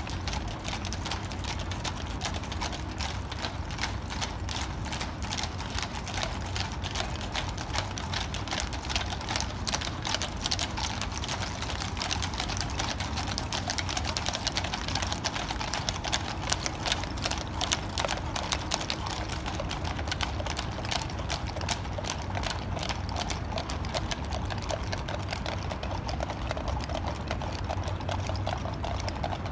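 Hooves of a mounted escort and carriage horses walking on pavement: many overlapping clip-clops, loudest in the middle, over a steady low rumble.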